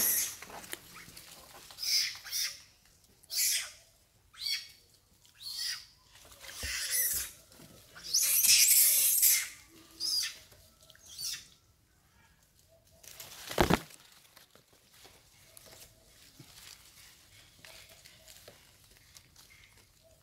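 Short scratchy rustles, one after another for the first eleven seconds or so, as a macaque moves and brushes against the phone at close range; a single sharp knock a little past the middle, then only faint background.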